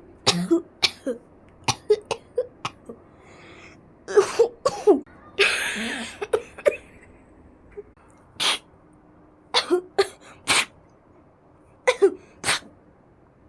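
People coughing in sudden fits: many short, sharp coughs in irregular clusters of two or three with brief pauses between. One longer, rougher hacking burst comes about five and a half seconds in.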